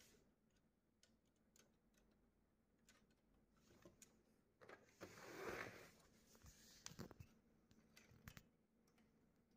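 Faint clicks and knocks from a partly disassembled HP LaserJet Pro MFP M227fdw printer's plastic and metal parts being handled, with a brief scraping rustle about five seconds in and a few sharper clicks after it.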